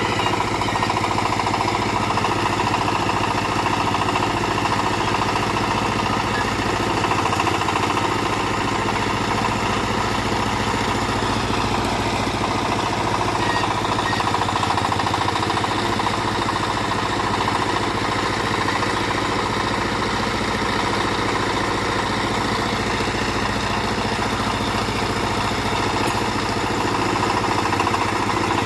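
Small backhoe's engine running steadily.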